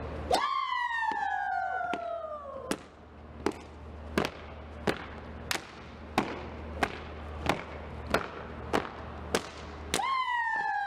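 Step routine: sharp hand claps and foot stomps on an even beat, about three every two seconds. A siren-like tone slides slowly downward over the first couple of seconds and starts falling again near the end.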